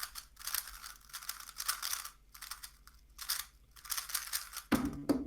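A 3x3 speed cube being turned fast during a speedsolve: quick bursts of clicking and rattling plastic layers. Near the end there is a louder knock, as the solve stops.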